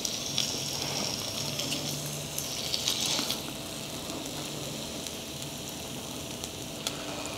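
Thin-sliced beef brisket rolled around green onion salad searing on a hot stone grill, giving a steady, even sizzle.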